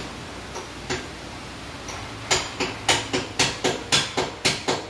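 A series of sharp knocks or taps, like hammer blows, one or two on their own and then coming steadily about three a second from about two seconds in.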